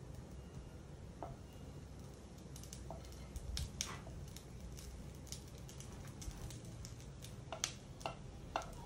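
Wooden spatula scraping and tapping as pre-cooked vermicelli (semiya) is pushed out of a glass bowl into a pan: faint, scattered light taps and scrapes over a low steady hum.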